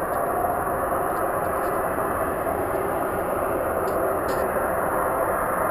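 A loud, steady noise from the sky with no breaks or changes in level, which the person recording likens to the sound of fighter jet planes.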